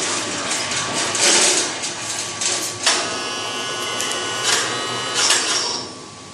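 A woodworking power tool running on wood, with repeated hissing surges and a steady whine in the middle that dies away near the end.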